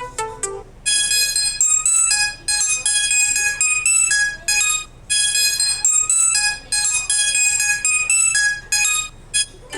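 A Samsung Galaxy Tab A9+ ringtone playing: a bright, high-pitched electronic melody of short notes, its phrase repeating about every four seconds. It follows the last notes of a lower-pitched tone just as it begins.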